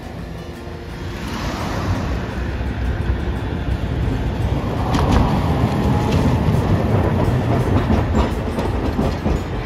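Hiroshima Electric Railway streetcars running through a street-track curve: the rumble of steel wheels on the rails, with clicks over rail joints and crossings. It swells from about a second in as a car passes close by.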